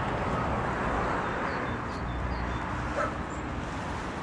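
A dog gives a single short bark or yip about three seconds in, over a steady low background rumble.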